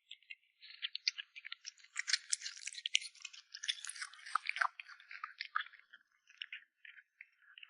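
A kitten chewing meat close to the microphone: quick wet clicks and crunches, densest in the first half and sparser near the end.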